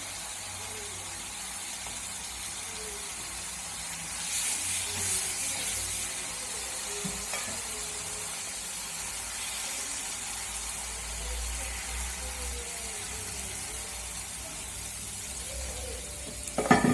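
Cashew curry masala gravy sizzling in a pan as it is stirred, a little louder about four seconds in. A few sharp knocks near the end.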